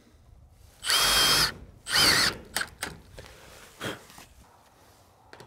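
Cordless power drill running in two short bursts about a second apart, the second with a wavering pitch, followed by a few light clicks.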